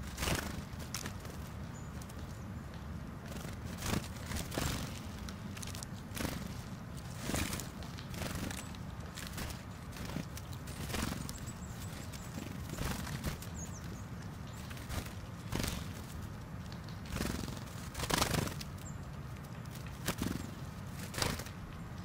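Small tits pecking and scrabbling in a pile of sunflower seeds on snow close to the microphone and flitting in and out: irregular soft taps and rustles every second or two, under a low steady rumble.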